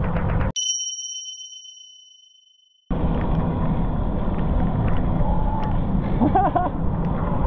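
A single bright ding sound effect that rings out and fades over about two seconds while all other sound drops away. Then wind buffeting the microphone and road noise from riding a bicycle in the rain resume, with a brief spoken "konnichiwa" greeting near the end.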